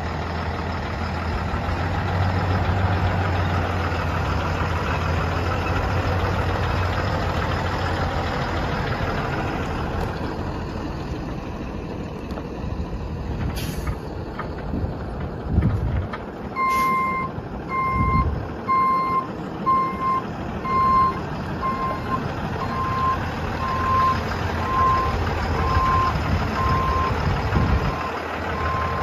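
The Cummins 6.7-litre diesel of a Freightliner box truck running with a steady low hum. Past the middle come two short sharp hisses about three seconds apart. Then the truck's reversing alarm starts, beeping at an even pace a little faster than once a second until the end.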